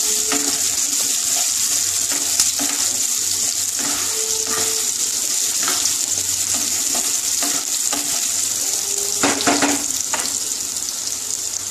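Potato cubes frying in hot mustard oil in a wok, a steady sizzle, with a wooden spatula scraping and knocking against the pan as they are stirred, most clearly about nine seconds in.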